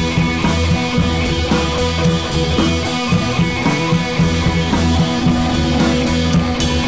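Background rock music with guitar and drums at a steady level.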